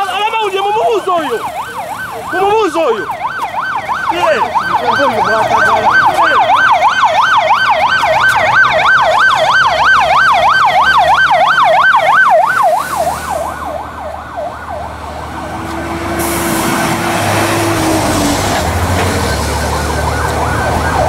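Police vehicle siren in a fast yelp, its pitch sweeping up and down about five times a second, cutting off about twelve seconds in. After that a low engine rumble and general noise remain, with voices near the start.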